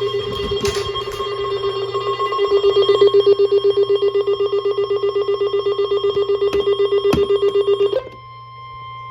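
Weather alert tones: a loud electronic alarm pulsing rapidly, about eight beeps a second, over a steady high-pitched attention tone. The pulsing alarm cuts off about eight seconds in, leaving the steady tone alone, with a few sharp clicks along the way.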